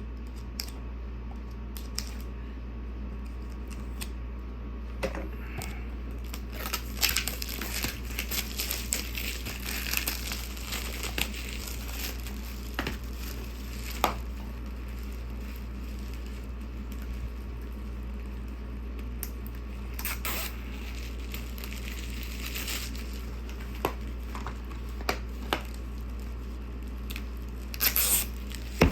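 Packaging being torn open and crinkled by hand: irregular rustling and crackling with scattered clicks, a louder burst and a sharp snap near the end, over a steady low hum.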